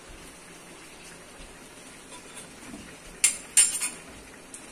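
Two sharp metal clanks on an aluminium cooking pot, about a third of a second apart and a little past halfway, each with a brief ringing tail. Under them is a steady hiss of rain.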